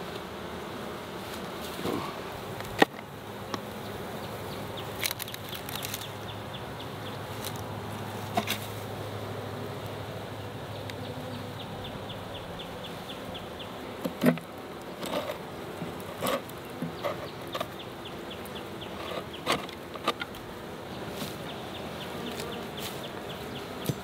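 A honey bee colony buzzing steadily around its opened hive boxes. Scattered wooden knocks and clicks come from hive frames being lifted and pried apart with a hive tool.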